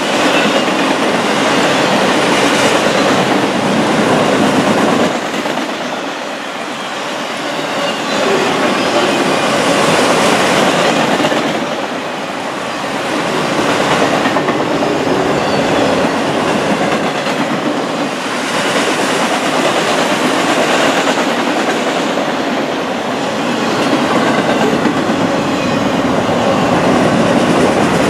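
A long freight train of autorack cars rolling past, its steel wheels clattering over the rail joints in a continuous rumble and rattle that swells and eases every few seconds.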